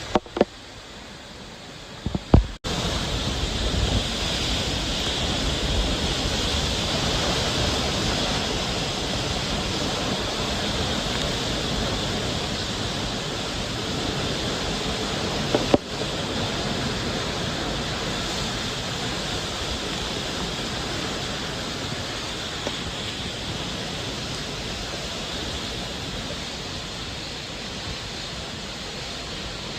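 Typhoon wind and driving rain: a dense, steady rush of noise with a hiss on top and a low rumble beneath. A quieter stretch with a few knocks comes first, then a sudden jump in level about two and a half seconds in.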